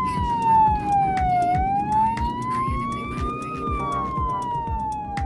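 Siren of a VMER emergency medical car in a slow wail, one tone rising and falling about every three and a half seconds, heard from inside the car. A steady low thumping beat runs underneath.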